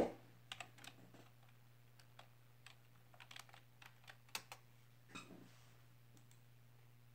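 Computer keyboard keys tapped in short irregular runs while a short word is typed, with a sharp click right at the start and a last tap a little after five seconds, over a faint steady low hum.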